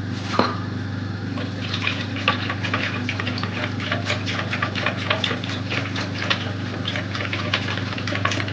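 Wire whisk beating a thin yogurt, egg and milk mixture in a plastic bowl: quick, repeated ticks of the wires against the bowl and a light sloshing, starting about a second and a half in. A steady low hum runs underneath.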